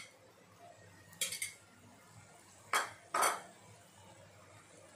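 A steel spoon clinking and scraping against a ceramic plate and pan as ground masala powder is knocked off into the pan. A few scattered clinks, the loudest two about half a second apart near the middle.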